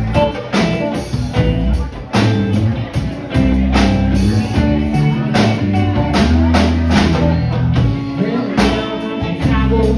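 Live band playing through a bar PA: electric guitars over bass notes and a drum kit.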